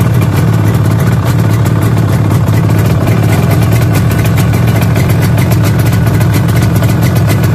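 Yamaha RD250C's air-cooled two-stroke twin engine running steadily at idle with an even, rapid exhaust beat, on a freshly rebuilt top end.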